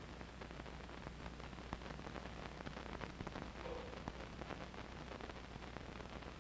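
Faint hiss and fine crackle of an old film soundtrack over a steady low hum, with no other sound.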